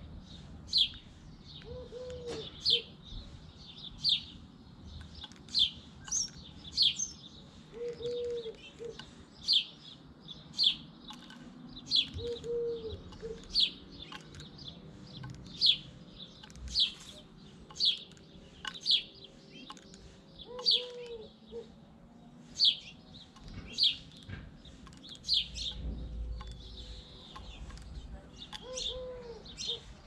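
House sparrow chirping over and over, a sharp high chirp about once a second. A fainter, low, soft call repeats every four to five seconds underneath.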